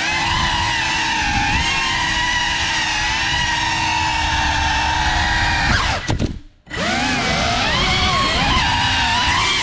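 Brushless motors and propellers of a GEPRC Cinelog35 6S cinewhoop FPV drone whining in flight, the pitch shifting with throttle. About six seconds in, the whine falls and drops almost to nothing for about half a second, then the motors spool back up.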